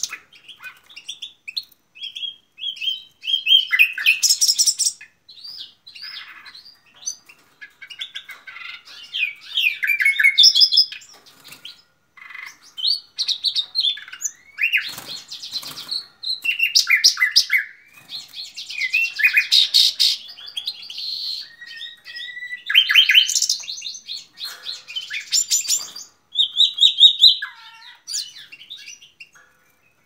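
Common nightingale singing: a run of varied phrases of rapid trills, rattles and clear whistles, each a second or two long, separated by short pauses.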